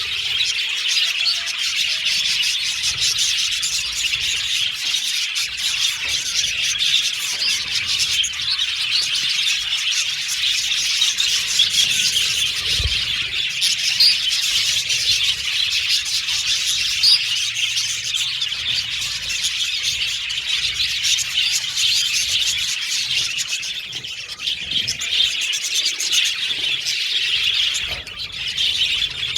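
A flock of budgerigars chirping and chattering together, a dense, continuous twitter with no pauses.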